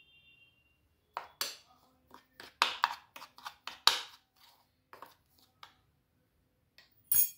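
Metal spoon stirring a dry flour and spice mix in a bowl, scraping and clinking against the bowl in a run of short irregular strokes, with one sharper knock near the end.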